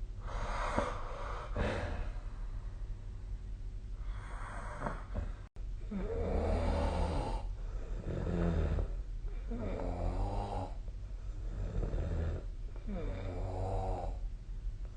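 A sleeping person snoring, one snore on each breath, roughly every one and a half to two seconds. The snores in the second half carry a strong buzzing pitch.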